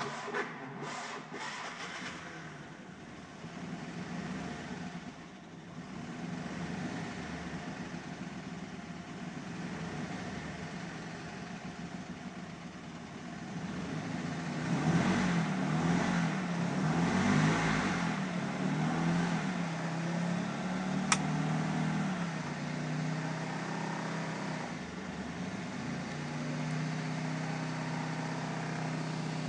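1968 Fiat 500F's air-cooled two-cylinder engine starting after seven years laid up: it catches almost at once and runs. The revs rise for several seconds in the middle, then fall back with a single sharp click, and it settles to a fast idle. The idle is out of adjustment and will not hold by itself.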